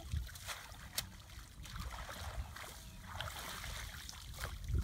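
Shallow muddy water sloshing and splashing as people wade and handle a bamboo fish trap in a flooded rice paddy, with a sharp click about a second in.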